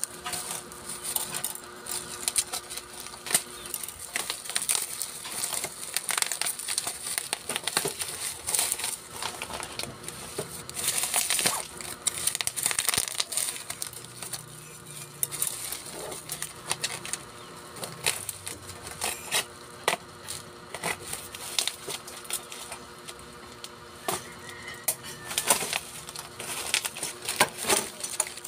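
Plastic bubble-wrap packaging crinkling, crackling and tearing as a parcel is unwrapped by hand, in irregular bursts of rustles and sharp crackles.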